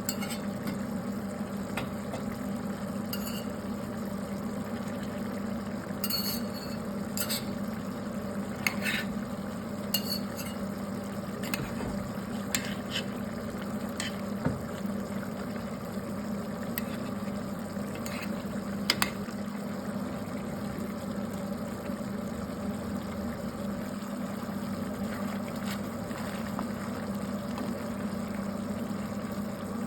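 A utensil stirring food in a cooking pan, with scattered metallic clinks against the pan, most of them in the first half, over a steady low hum.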